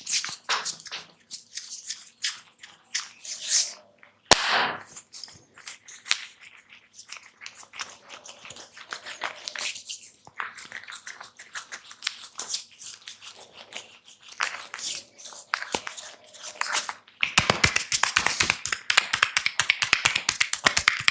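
Close-miked crackling and scratching of a barber's fingers rubbing the hair and scalp, the 'hair cracking' of an ASMR head massage. There is a sharp click about four seconds in, and a fast, dense run of crackles near the end.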